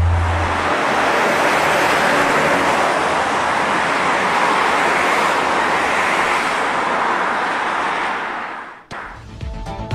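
CN-235 twin-turboprop transport aircraft's engines at high power: a steady, loud rushing noise that cuts off suddenly about nine seconds in.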